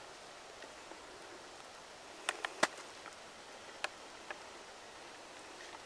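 Quiet outdoor hiss broken by a few sharp clicks and snaps from someone moving on snowy leaf litter: three quick ones about two seconds in, then two more about a second later.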